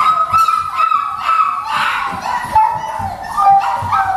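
Beagle puppies whining: a run of high, thin, wavering cries that slide lower in pitch toward the end.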